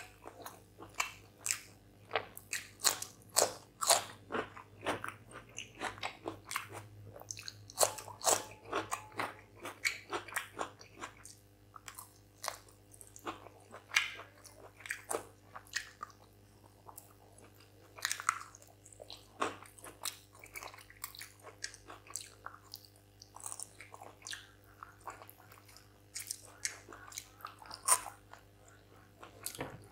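Close-miked eating: crisp crunching bites of a raw cucumber slice and wet chewing, many irregular crackles that are busiest in the first dozen seconds and thin out after. A sharp mouth click near the end as fingers are licked.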